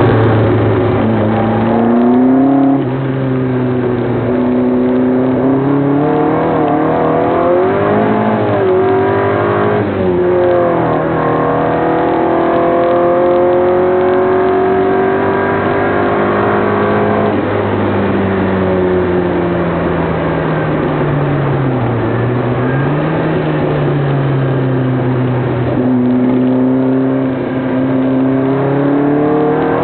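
Triumph Spitfire's four-cylinder engine running as the car is driven, its revs rising and falling, with slow climbs in pitch and a brief drop and recovery near the three-quarter mark.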